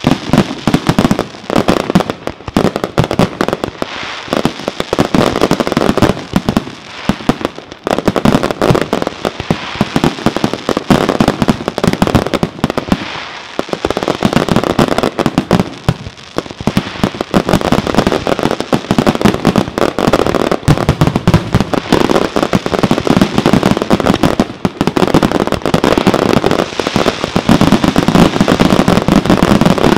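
Fireworks display: aerial shells launching and bursting in rapid, overlapping succession, a near-continuous barrage of sharp bangs that thins briefly twice around the middle.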